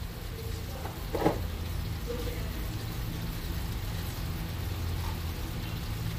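A steady low hum, with one short knock about a second in.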